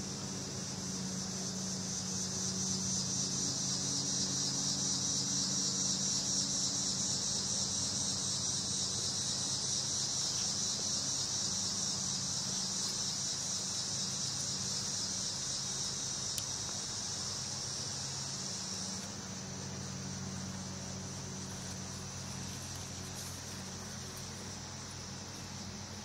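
A chorus of insects keeps up a steady high-pitched buzzing trill that eases slightly about two-thirds of the way through, with a faint low hum underneath.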